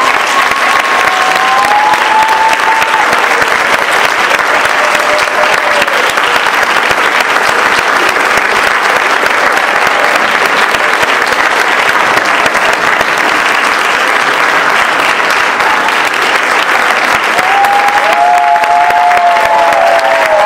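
Large audience applauding steadily, the clapping swelling a little near the end. A few drawn-out calls from the crowd rise above it at the start and again near the end.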